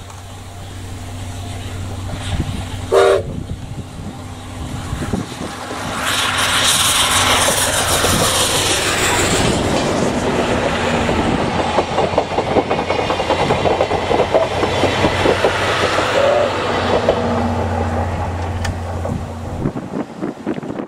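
D51 steam locomotive giving one short whistle blast about three seconds in, then passing close with a loud rush of steam and exhaust. The clatter of its coaches' wheels over the rail joints follows and fades at the end.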